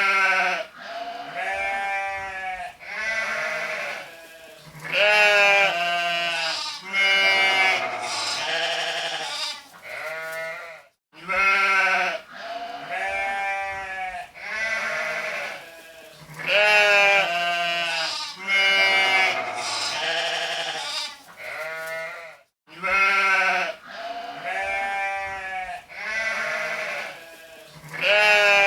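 Sheep bleating: a string of wavering calls at different pitches, some overlapping, as from several animals. The same stretch of about eleven seconds repeats twice more, with a brief silence at each join.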